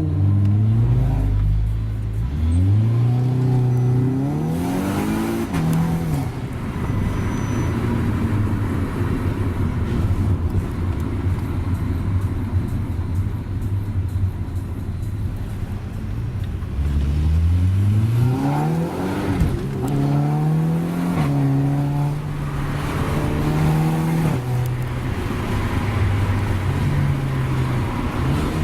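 Volkswagen Golf R's turbocharged 2.0-litre four-cylinder heard from inside the car under hard acceleration, revs climbing steeply in the first few seconds. A stretch of steady engine and road noise follows, then about 17 seconds in the revs climb steeply again and hold with small steps in pitch.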